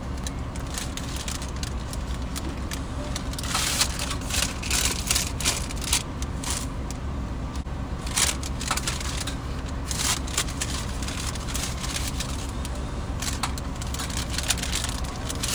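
Steady low hum of a car idling, heard from inside the cabin, with frequent small clicks and crackles of things being handled close by.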